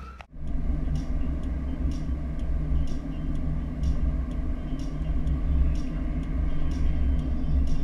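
Road noise inside a moving SUV's cabin: a steady low rumble of tyres and engine, with faint ticks about twice a second.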